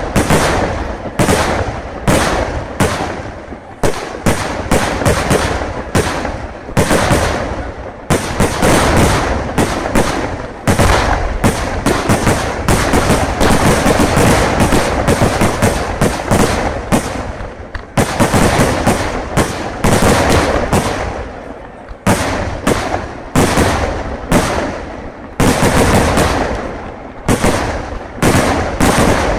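Kerala vedikettu fireworks going off in a rapid barrage of loud bangs, several a second. The bangs thicken into an almost unbroken crackling roll in the middle, with short lulls between bursts.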